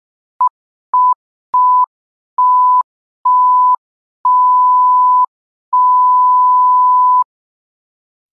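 Seven electronic beeps at one steady pitch, each longer than the last, from a short blip to a tone held about a second and a half, with brief even gaps between them.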